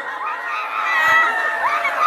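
A crowd of women crying out and wailing at once, many high voices overlapping and rising and falling in pitch.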